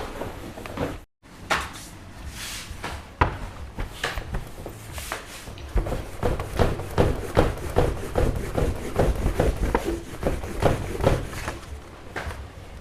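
A quick, irregular series of knocks and thuds, as of hard objects striking a wooden surface. They come thickest in the second half, two or three a second. The sound cuts out completely for a moment about a second in.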